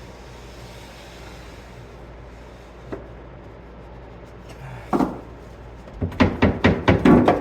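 Wooden knocks from a loose tongue-and-groove board being handled: one knock about five seconds in, then a quick run of about six sharp knocks near the end.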